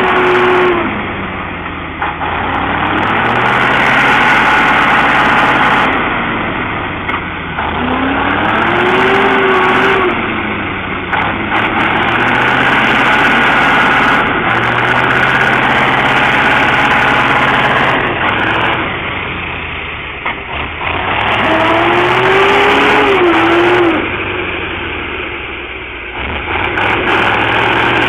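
Heavy truck engine revving hard through deep mud, its pitch rising and falling in repeated surges as the tyres churn.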